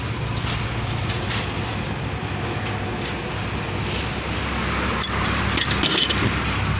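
Steady low hum of a running engine, over which the pump handle of a hydraulic bottle jack is worked with light metal clicks; a sharper clatter of metal comes about five to six seconds in.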